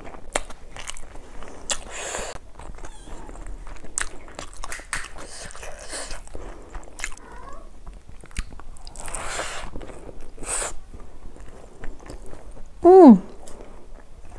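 Close-miked eating sounds of a person eating rice with curry by hand: fingers working the rice on a steel plate, wet chewing, lip smacks and small clicks. About thirteen seconds in, a short, loud tone that slides downward stands out above the chewing.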